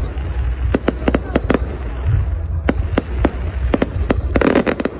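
Aerial fireworks exploding overhead: irregular sharp bangs over a low rumble, with a dense run of crackling about four and a half seconds in.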